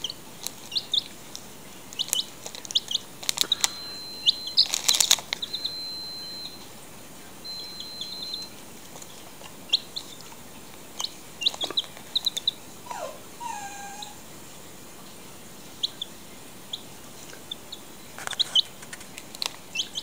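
A young chick peeping over and over in short, high chirps, with a few longer held peeps. Twice the foil crisp packet crinkles loudly, about five seconds in and again near the end.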